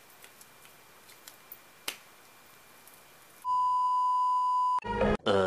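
Steady electronic test-card beep of about 1 kHz, the 'please stand by' tone, starting about three and a half seconds in and lasting about a second and a half, then cut off by a brief loud garbled sound near the end. Before it there is only quiet room tone with a few faint clicks.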